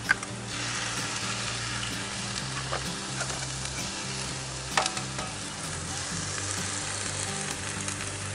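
Potato and pepper hash sizzling steadily in a hot cast iron skillet, the hiss picking up about half a second in. Two sharp taps, one at the start and one about five seconds in, as eggs are cracked into the pan.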